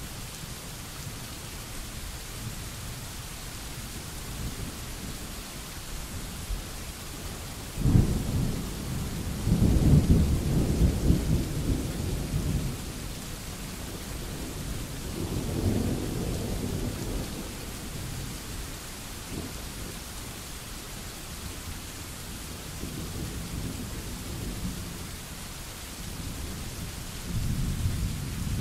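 Steady rain falling, with rolling thunder over it: a sudden clap about eight seconds in runs into a long rumble, a softer rumble follows midway, and more thunder builds near the end.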